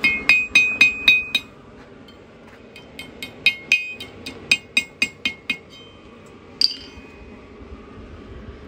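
Blacksmith's hand hammer striking a thin iron rod on the horn of a steel anvil, each blow a sharp ringing clink. A quick run of about five blows is followed, after a short pause, by about ten more, and a single blow comes near the end.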